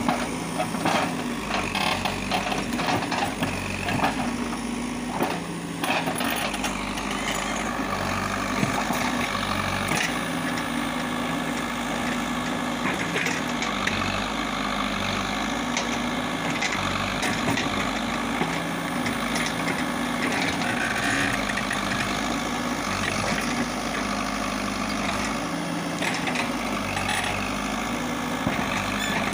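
Caterpillar 424B2 backhoe loader's diesel engine running steadily, its pitch wavering slightly with the hydraulic load. Scattered knocks and snaps in the first few seconds as the bucket digs through brush and roots.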